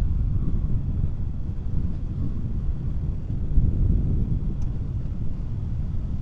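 Steady low rumble of wind buffeting the camera microphone on a moving Yamaha NMAX scooter, mixed with the scooter's running engine.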